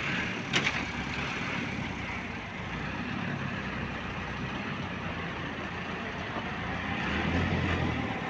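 Tractor loader's diesel engine running steadily, growing louder about seven seconds in as the loader arms lift a straw bale. A sharp knock about half a second in.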